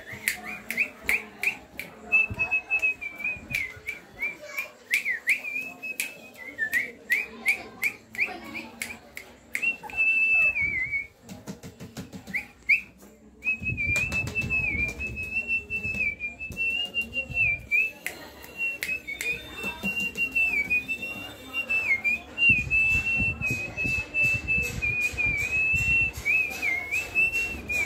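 A person whistling a high, wavering tone in short repeated phrases with quick dips in pitch, to draw the puppies' attention. A run of sharp clicks comes through the first ten seconds or so.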